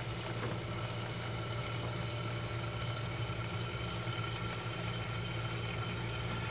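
Gyoza frying and steaming in a little water in a lidded pan on the stove: a steady low hum with a hiss over it, unchanging throughout.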